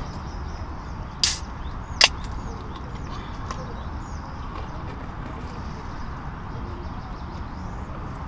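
Small birds chirping over a steady outdoor background, broken by two short sharp noises about a second and two seconds in, the second the louder.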